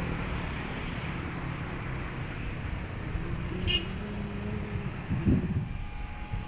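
Motorcycle tricycle engine running as it rides along, with road and wind noise. A brief high chirp comes a little past halfway, and the noise eases near the end.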